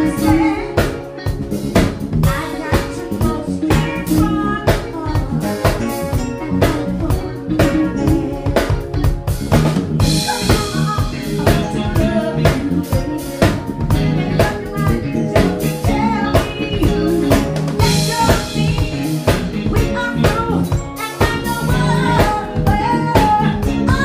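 Live soul-funk band playing with a steady drum-kit beat and electric bass, under a woman singing lead into a microphone.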